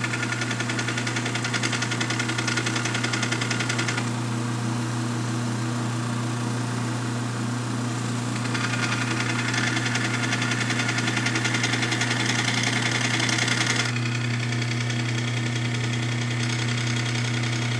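Small belt sander running with a diamond-grit belt, a carbide saw tooth held against it and ground, with a fast even knocking from the bump at the belt's taped joint. The grinding grows louder about halfway through, then eases.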